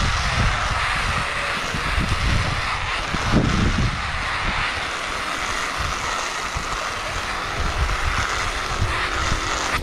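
A glove scraping along the asphalt at speed: a steady, loud scraping hiss over a low wind rumble on the microphone, breaking off at the very end.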